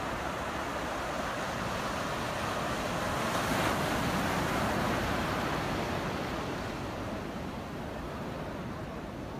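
Ocean surf breaking and washing up the beach. It swells about three seconds in and eases off toward the end.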